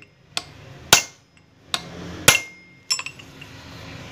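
Hammer striking a steel tool held on the nut of a tractor PTO gearbox gear, five sharp metal blows about half a second apart, each ringing briefly. The mechanic is knocking the nut loose so the gear set can be changed.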